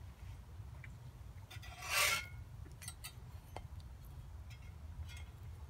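A metal spatula scraping across a frying pan under a slice of toast. There is one loud scrape about two seconds in, then a few lighter clicks and scrapes.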